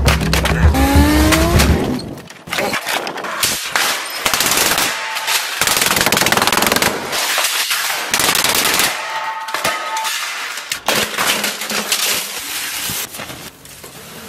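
A plastic printer being smashed apart: rapid, loud bangs and crashes with clattering of broken plastic pieces, broken by a few brief pauses.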